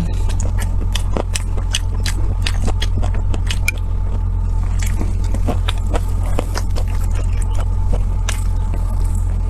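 Close-up eating sounds: a person biting and chewing food, with many short wet clicks and crunches, over a steady low hum.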